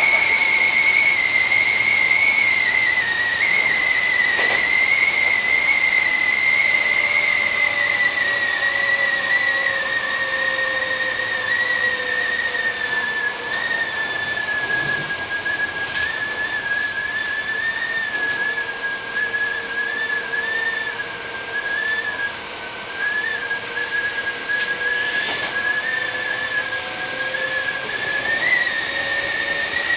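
Hankyu commuter train running along the track, heard from inside the front car: a steady high whine with a slightly wavering pitch that sags slowly and rises again near the end, over an even running hiss and a few sharp clicks.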